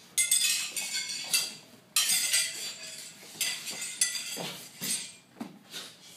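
Metal sai clinking during a kata: four sharp metallic clinks in the first four seconds, each ringing briefly.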